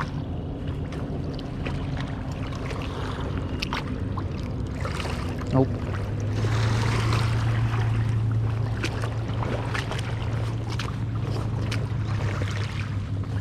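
Water sloshing and splashing around someone wading, with scattered small knocks. Under it runs a steady low mechanical drone that grows stronger about halfway through.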